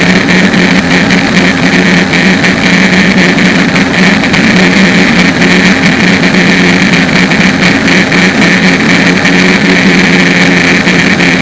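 Aquacraft SV27 RC speedboat's brushless electric motor and two-blade propeller running at speed, heard from a camera mounted on the hull: a steady low hum under a high whine, with water noise.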